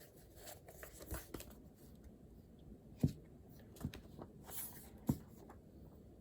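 Papers and small items handled on a desk: a few soft knocks, the loudest about three seconds in, and a brief paper rustle.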